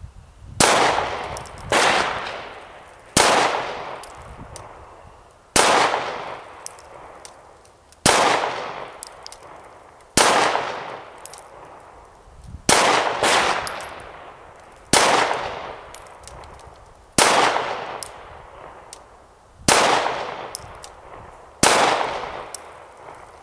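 Vickers Tactical Glock 19 9mm pistol fired in slow, deliberate single shots, about a dozen spaced one to two and a half seconds apart, each shot trailing off in a long echo.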